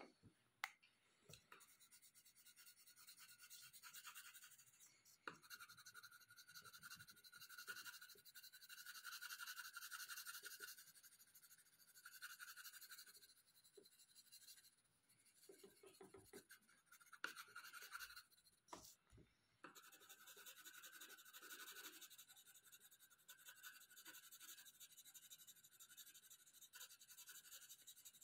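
Faint scratching of a colored pencil shading on paper in rapid strokes, with a couple of short pauses.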